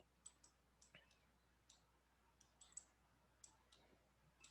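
Faint, irregular clicking of a computer mouse and keyboard, about ten clicks spread over a few seconds, against near silence.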